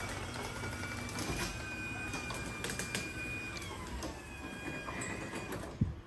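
Overhead garage door opener running as the sectional door rises: a motor hum with a steady high squeal that slides lower about four seconds in, along with light clicks. The opener stops with a thump near the end as the door reaches the fully open position.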